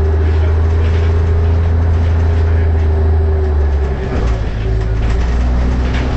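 Leyland Titan double-decker bus under way: a loud, steady low engine drone with a whine over it. The drone breaks and dips briefly about four seconds in, then carries on.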